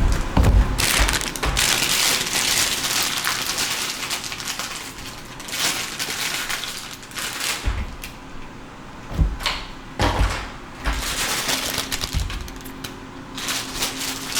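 Hands handling a computer hard drive and its plastic packaging: crinkling and rustling with several short knocks.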